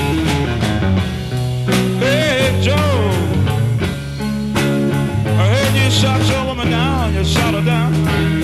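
Slow 1960s rock song: electric guitar, bass and drums playing steadily. A wavering, bending melodic line comes in twice over it, a few seconds apart.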